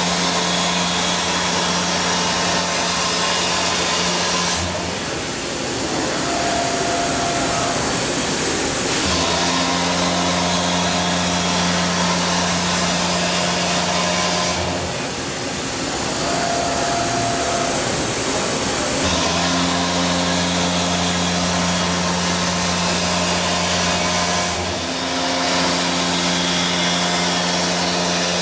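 A Milltronics BR60IL CNC mill's 3-inch six-insert face mill cutting cast iron, with the spindle at about 880 rpm. Each cutting stretch is a steady hum of several tones. Twice it gives way for a few seconds to a hissier noise with a short whine, and there is a brief break near the end.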